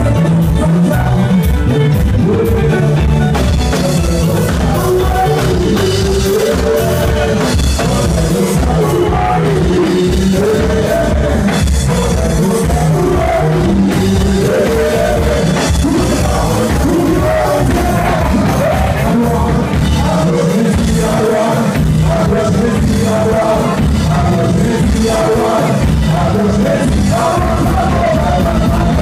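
Live konpa band playing: electric guitar and drum kit over a steady dance beat, with a male lead singer.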